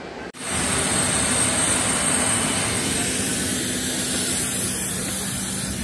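Steady jet noise of an airliner on the ground, heard at its open boarding door: an even rush with a thin high whine, starting abruptly about half a second in.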